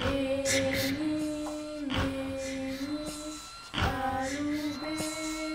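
A female voice singing a slow lullaby in long held notes, each lasting roughly two seconds, with short breaks between phrases.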